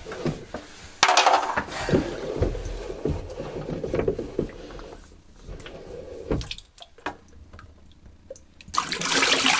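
Whole-house water filter sump being unscrewed from its head: a sudden rush of water and air as the seal breaks about a second in, dying away over a few seconds, then plastic clicks and handling. Near the end, water starts pouring and splashing.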